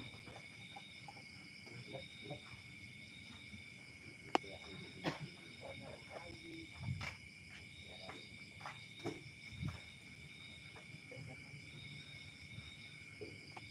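Insects calling: a steady high drone, with a higher trill that comes and goes in spells of a second or two. Faint scattered clicks and knocks run underneath, the sharpest about four seconds in.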